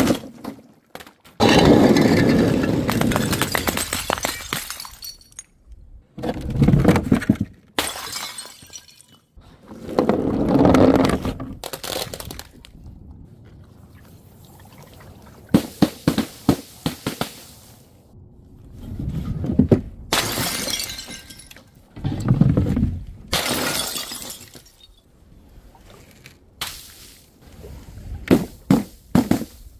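A series of drops: liquid-filled plastic soda bottles and paint-filled balloons running down a wooden chute and bursting in splashes on a board below. Several long stretches of rolling, rushing noise alternate with sudden splattering bursts, and quick runs of sharp knocks come around the middle and near the end.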